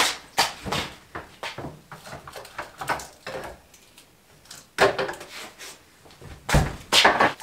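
A built-in refrigerator door being opened and a glass jar taken out, with a run of separate knocks and clicks; the loudest is a deep thump near the end.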